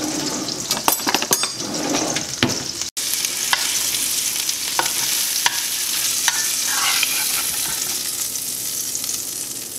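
Remora fillets sizzling steadily as they pan-fry in butter and olive oil, with a slotted spatula scraping and tapping the frying pan as they are turned. A run of clicks and clatters in the first three seconds, and the sound cuts out for an instant about three seconds in.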